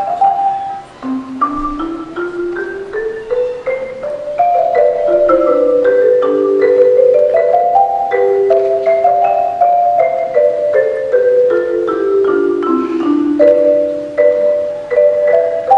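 Marimba playing: a quick rising run of notes about a second in, then a fast melody of rapidly struck notes.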